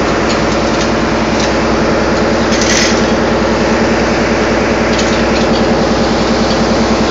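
Heavy machinery running steadily and loudly: a fast, even throb over a strong, constant hum.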